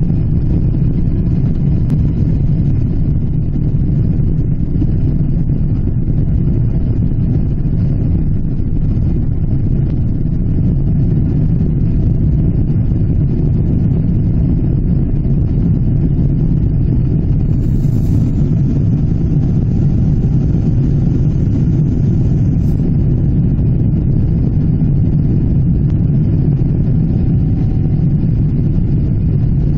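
Steady engine and airflow noise inside the cabin of a Boeing 777-300ER, an even low noise that holds level throughout.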